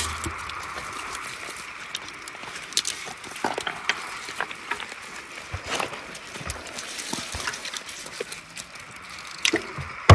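Steady rushing of river water, with scattered knocks and splashes.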